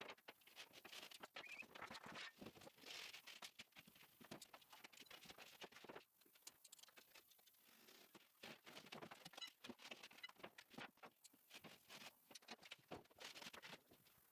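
Faint, irregular light taps, clicks and rustling, the sound of small objects being handled and moved about, with a brief lull about six seconds in.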